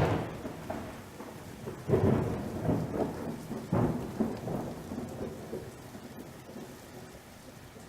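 Thunder over steady rain, with loud swells at the start, about two seconds in and again near four seconds, dying away toward the end.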